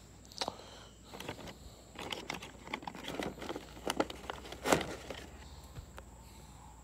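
Packaging being handled and opened by hand: irregular crinkling and rustling with scattered clicks, the sharpest crackle about two-thirds of the way through.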